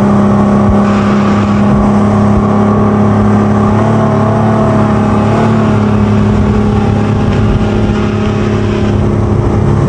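Motorboat engine running steadily at speed while towing a banana boat, with water rushing past the hull.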